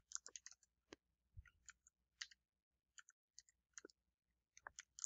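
Faint, scattered clicks of computer keys being pressed one at a time, a few in quick succession near the start and again near the end.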